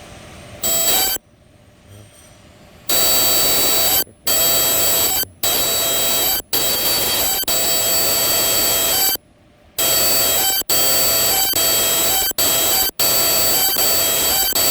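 Ultrasonic welding machine firing on test triggers: a loud, harsh screech with several steady high whistling tones, switching on in runs of about a second with short breaks between them.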